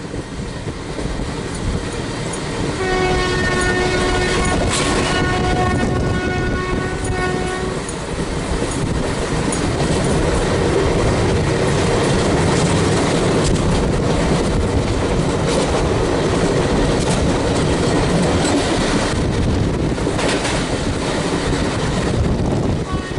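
A WAP4 electric locomotive's horn sounds for about five seconds, then the express's coaches rush past at speed with wheels clattering over the rail joints. A second horn blast begins right at the end.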